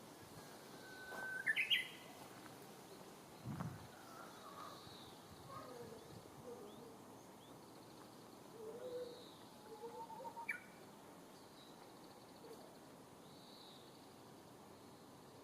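Japanese bush warbler singing its "hō-hokekyo" song: a held whistle followed by a quick sharp flourish jumping higher. It sings loudest about a second and a half in and again about ten seconds in. Fainter chirps of other birds sound in between.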